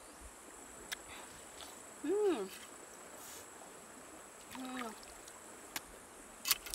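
Steady high-pitched insect drone, with a person's two short hums that rise and fall in pitch and a few sharp clicks of a machete cutting watermelon rind near the end.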